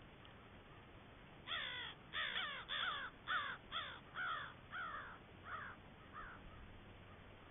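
American crows cawing: a run of about ten harsh caws beginning about a second and a half in, coming quickly at first, then slower and fainter toward the end.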